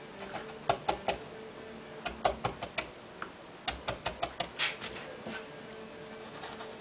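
Hand-pushed carving gouge cutting into a wooden board: short crisp ticks as it slices the fibres, coming in three quick clusters. A faint steady hum runs underneath.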